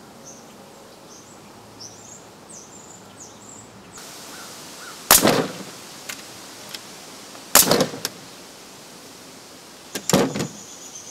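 Pneumatic framing nailer firing three sharp shots about two and a half seconds apart, the last with a quick second crack, driving nails through a pine board into a standard cement block. In the standard block the nails bend over instead of holding.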